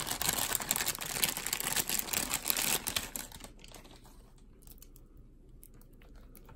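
A clear plastic bag crinkling and rustling as a handheld radio is pulled out of it. It stops about three seconds in, leaving only a few faint clicks of handling.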